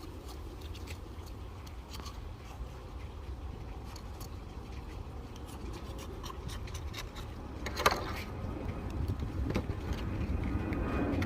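Knife scraping and clicking against a horse clam shell as the clam is opened, over a steady low rumble, with one sharp click about eight seconds in.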